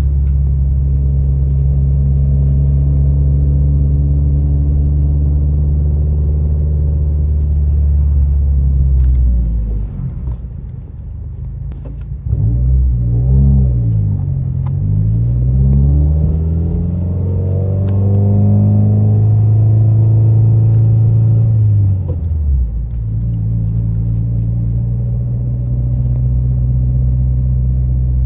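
Subaru WRX's turbocharged flat-four engine heard from inside the car while driving: a steady drone at cruising revs, which falls away about ten seconds in as the throttle is lifted. The pitch then swings down and up through gear changes before it settles again, and it lifts off once more near the end.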